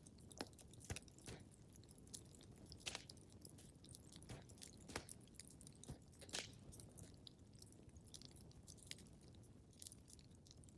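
Quiet wood fire crackling in a fireplace: irregular sharp pops and snaps, a few louder ones, over a soft low rush of flame.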